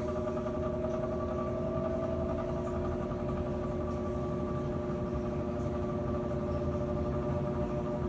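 Furnace blower motor running with a steady hum of several fixed tones over a low rumble. It sounds unhealthy: the motor has been damaged and is in big trouble.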